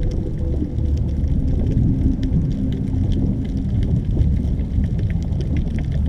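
Underwater ambience: a steady low rumble with scattered crackling clicks, and a faint held low tone through the middle.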